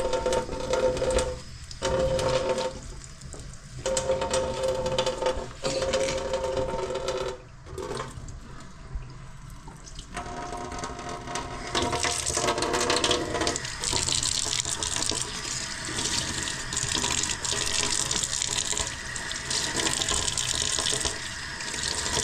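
Kitchen mixer tap running into a sink. Its pitched flow stops and restarts several times in the first half. From about halfway on, water splashes over utensils being rinsed.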